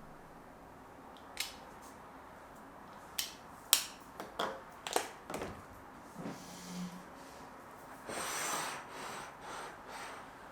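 Household objects being handled: a run of light clicks and knocks, then a stretch of rubbing and rustling near the end.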